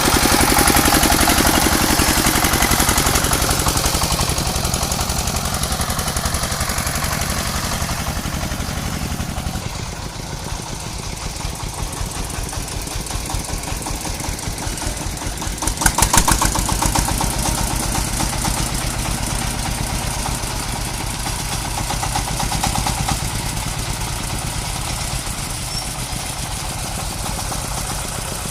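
An engine running steadily with a rapid, even firing beat, loudest in the first few seconds, with a short louder burst about sixteen seconds in.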